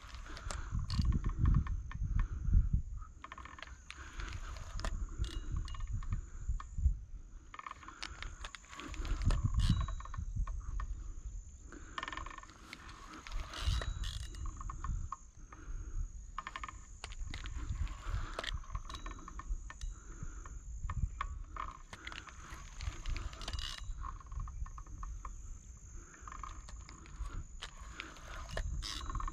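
Chorus of frogs croaking over a steady high-pitched insect drone, with occasional low rumbles and sharp clicks.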